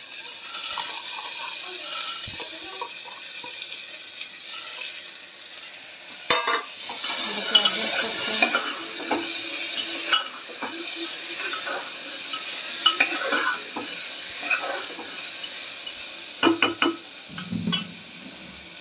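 Chana dal sizzling as it fries in hot oil in a pressure cooker, stirred with a metal ladle that scrapes and now and then knocks against the pot.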